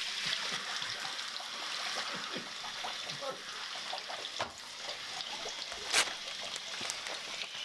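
Shower spray running steadily, a constant hiss of water with small irregular splashes as it falls on a person and the tiles. About six seconds in there is a single sharp knock.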